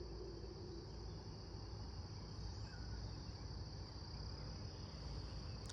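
A steady high insect chirr over low background rumble, while the outdoor warning siren's last low wind-down tone fades out in the first second.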